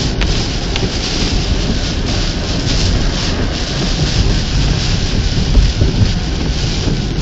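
Storm wind and rain: a loud, steady rushing with a deep rumble from wind buffeting the microphone, and a couple of faint ticks near the start.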